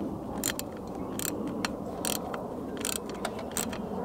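Ratchet wrench clicking while tightening the hose clamp on an intake air filter: sharp, separate clicks at irregular spacing, roughly one every half second.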